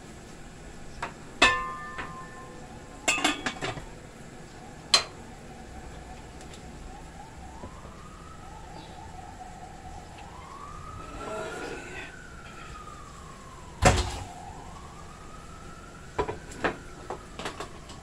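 Metal cookware clanking: an aluminium pot and its lid knocked and set down in a few sharp clinks, some ringing briefly. Behind them an emergency-vehicle siren wails faintly, rising and falling slowly, from about seven seconds in.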